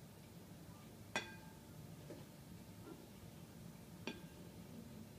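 Two light glass clinks: a small glass cup knocking against the rim of a glass mixing bowl while pouring, each with a short ringing tail. The first comes about a second in, the second, fainter, about four seconds in.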